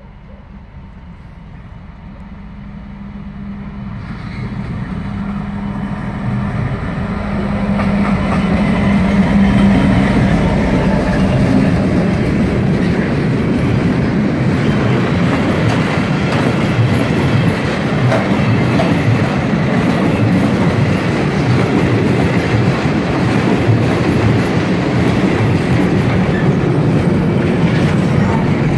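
A Class 66 diesel locomotive approaches and passes close by, its engine note growing steadily louder over the first several seconds. It is followed by a long train of empty double-deck car-transporter wagons rolling past with a continuous clickety-clack of wheels over the rail joints.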